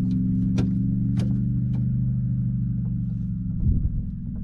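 A boat's motor running steadily at idle, heard as a low, even hum. There are a few sharp clicks in the first second or so and a low thump about three and a half seconds in.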